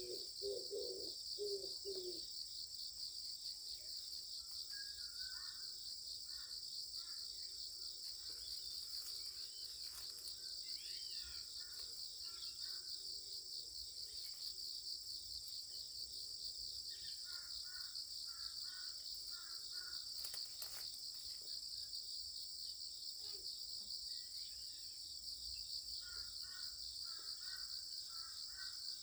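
A steady, high-pitched chorus of insects, with groups of short bird calls several times and a few low calls in the first couple of seconds.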